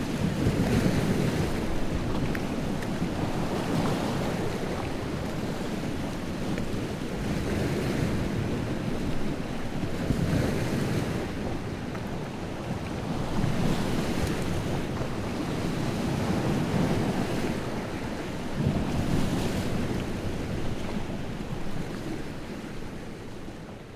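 Wind-driven lake waves breaking on the shore in a strong wind, rushing surf that swells every few seconds, with wind buffeting the microphone; it fades down near the end.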